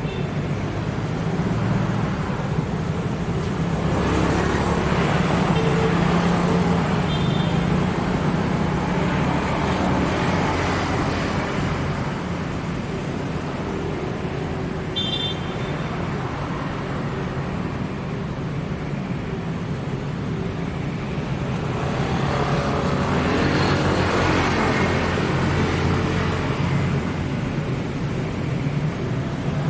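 Road traffic: a steady engine hum of vehicles, swelling twice as vehicles pass close by, a few seconds in and again past the middle. A couple of brief high chirps sound over it.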